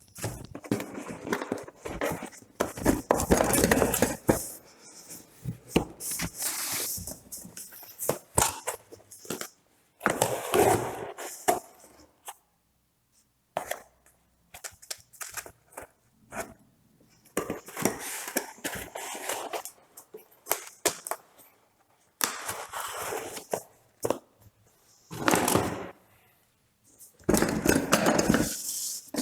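Printer-kit packaging being handled and unwrapped: irregular bursts of rustling, scraping and tearing with sharp clicks, separated by short pauses.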